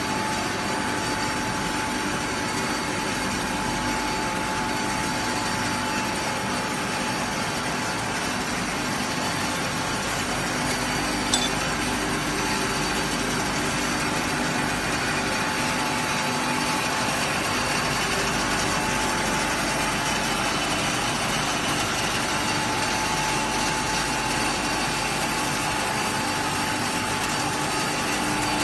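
Machinery of a waste-oil vacuum distillation plant running steadily: a loud, even hiss with a constant hum through it, and one sharp click about eleven seconds in.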